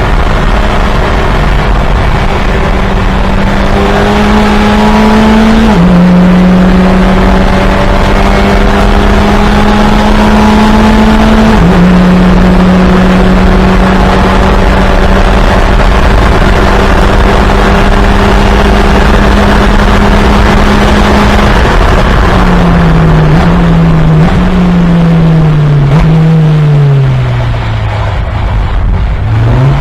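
Fun Cup race car engine running hard at high revs, with two upshifts that each drop the pitch. It then holds a steady note before a series of downshifts with short throttle blips as the car brakes.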